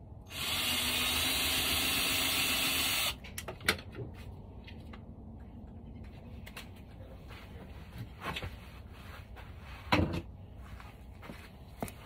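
A power drill runs steadily for about three seconds, then stops. Scattered clicks and knocks follow, with one loud knock about ten seconds in.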